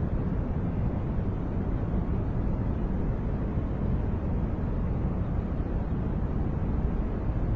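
Continuous white-noise track: a steady, even rushing noise, heaviest in the low end, that does not change.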